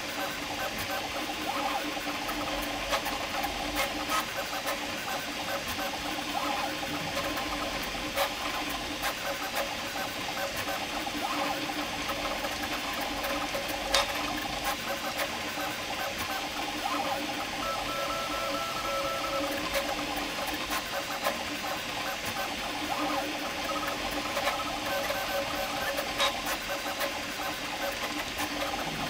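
Prusa MK4 3D printer mid-print on input-shaping firmware: its stepper motors whine and buzz through quick moves over a steady fan hiss. Scattered clicks come through, and a brief higher whine sounds for a couple of seconds past the middle.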